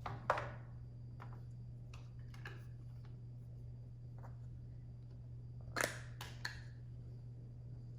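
Scattered clicks and light knocks of a plastic Softee Dough jar and toy parts being handled: a sharp one just after the start, a few single ones, and a quick cluster of several around six seconds in, over a steady low hum.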